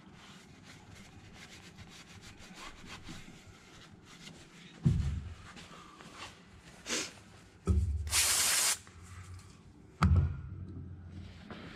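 A shop towel wiping and rubbing the bare metal mating surface of an engine's cylinder head, cleaning it with brake cleaner. This is followed by three dull knocks and, about eight seconds in, a short hiss from the spray can of brake cleaner.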